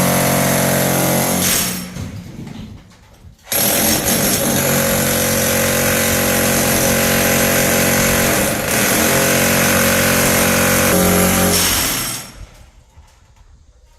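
Electric demolition hammer running as it breaks through a house wall: a short run, a drop about two seconds in, then a sudden restart and a long run of about eight seconds that stops near the end.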